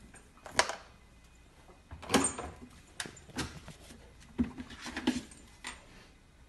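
Husky puppy clambering into an open refrigerator: a string of sharp knocks and thumps against the fridge shelves and door, about half a dozen spread over several seconds.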